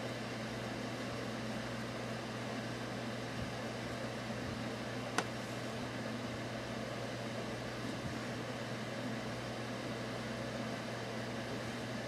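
Steady low hum over an even hiss, room background noise from a running machine, with one sharp click about five seconds in.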